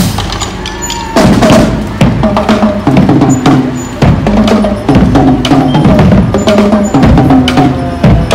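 Marching band playing as it passes: brass horns carry a tune over a steady beat of drums, including bass drum.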